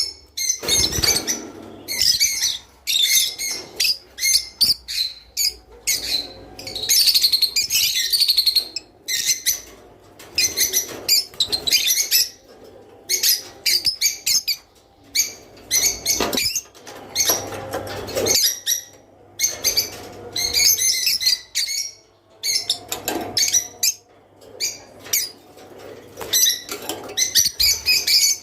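A group of small cage birds chirping and twittering in quick, irregular bursts with short pauses between them, with a few soft wing flutters.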